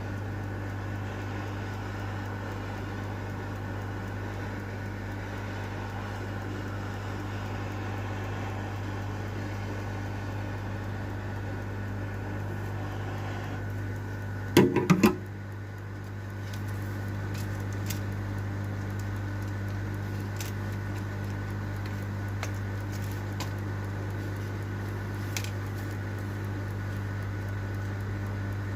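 Steady electrical hum from workbench equipment, with a quick cluster of four sharp clicks about halfway through and a few light ticks afterwards, typical of small tools being handled on a repair bench.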